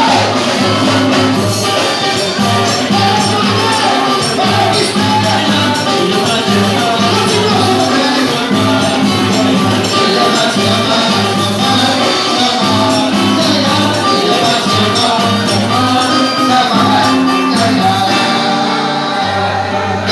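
Live band music with a steady beat, a running bass line and hand percussion such as tambourine and shakers, mostly without singing.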